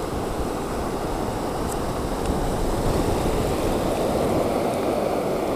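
Small waves breaking and foamy surf washing over the shallows at the shoreline: a steady rush that swells a little about two seconds in.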